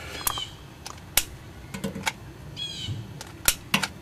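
A few scattered sharp clicks and knocks, with a short chirp, like a small bird's call, about two and a half seconds in.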